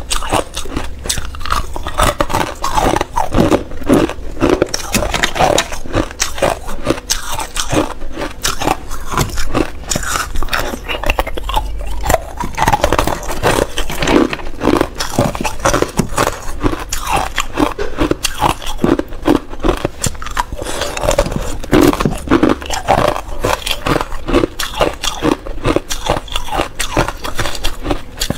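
Clear ice cubes being bitten and chewed close to a clip-on microphone: a steady run of sharp cracking and crunching bites.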